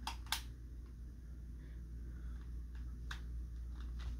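A few light clicks: two sharp ones at the start, then fainter ones about three seconds in, over a steady low hum.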